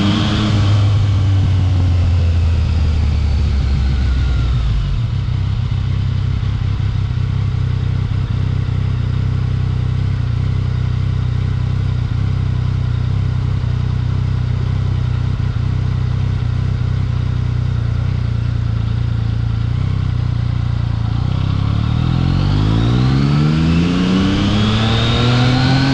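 Yamaha XSR900's three-cylinder engine under way: the pitch drops as it slows in the first few seconds, holds steady at a cruise through the middle, then climbs as it accelerates near the end.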